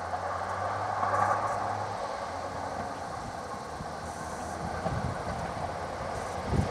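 Class 242 electric locomotive hauling passenger coaches toward the listener: a steady rumble of wheels on rail, with irregular clicks from the rail joints starting about five seconds in and growing stronger near the end.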